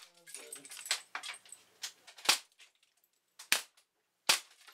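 Three sharp shots from Hammerli 850 Magnum CO2 air rifles, a little over two seconds in, at about three and a half seconds and just after four seconds, with lighter clicks and knocks in the first half.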